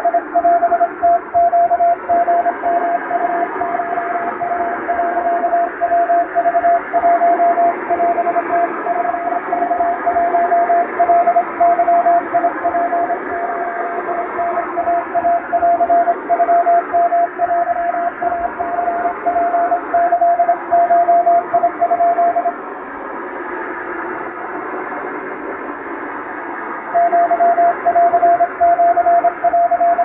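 Wabun (Japanese) Morse code telegram sent by hand on a telegraph key: a single beeping tone keyed into dots and dashes over shortwave-style static hiss. The keying stops about 22 seconds in, leaving only the static, and resumes about five seconds later.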